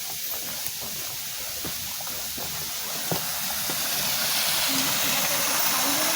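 Steady rushing hiss of a waterfall, growing louder through the second half, with a few sharp clicks in the first half.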